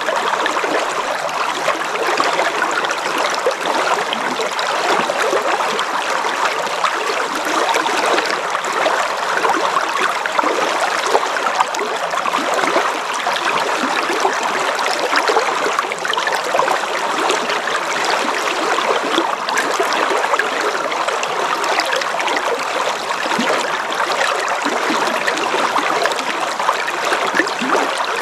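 River flowing: a steady, even sound of running water.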